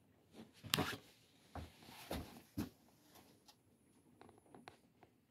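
Soft scattered knocks and scuffs with brief rustling in a quiet room, from someone moving about: footsteps and clothing or handling noise. The loudest knocks come about a second in and just after two seconds.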